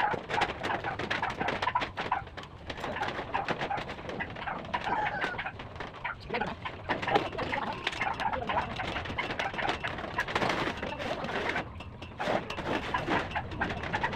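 Irregular knocks and taps on corrugated metal roofing sheets being fitted, with doves cooing.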